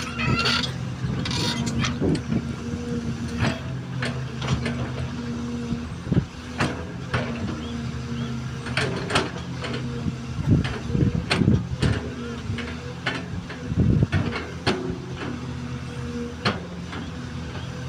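XCMG XE215C excavator's diesel engine running steadily under load, with frequent sharp knocks and clanks from the working bucket and arm.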